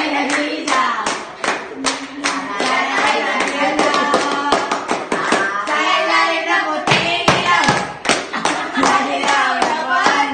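A group of students clapping hands in a steady rhythm, about three claps a second, with young voices singing and calling out along with it.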